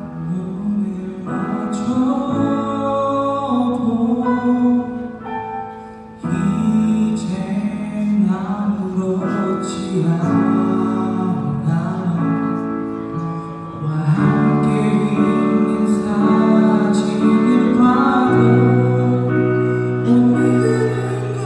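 Live band playing a slow ballad: a male lead singer's voice over keyboard and guitar, with female vocals also present. The music dips briefly about six seconds in, then comes back in full.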